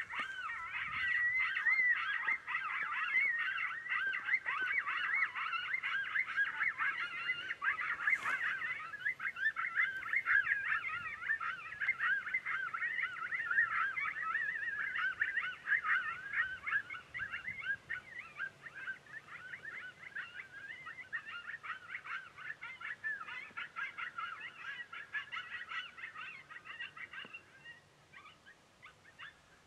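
A chorus of coyotes yipping and howling together, many wavering high calls overlapping in a continuous jumble. It fades away near the end. A single sharp click sounds about eight seconds in.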